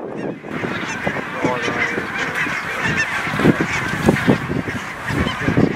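A large mixed flock of barnacle, greylag and bean geese honking and yapping in a dense chorus as it takes flight, swelling about half a second in. A few low thumps stand out among the calls.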